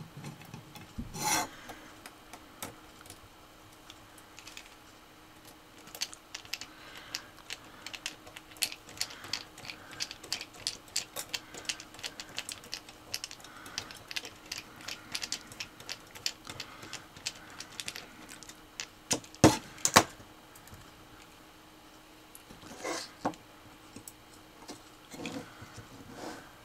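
A hand screwdriver driving tiny screws into the small DC motor mounts on a metal robot chassis: a long run of quick, irregular small clicks and scraping, with a rasping scrape about a second in and more near the end. Two sharp knocks stand out, a split second apart, about three quarters of the way through.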